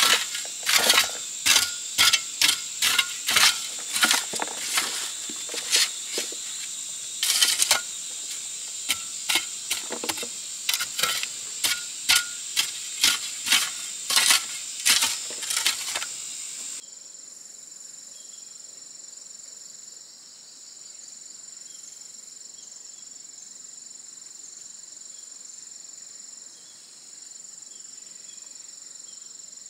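Metal shovel blade striking and scraping into clay soil in a steady rhythm, one or two strokes a second, over a steady high insect drone. About two-thirds through the strokes stop abruptly and the high-pitched insect chorus continues alone.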